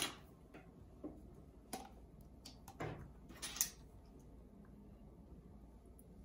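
A few light clicks and taps of a plastic measuring-spoon set and a small extract bottle being handled while anise extract is measured out, the sharpest click at the very start.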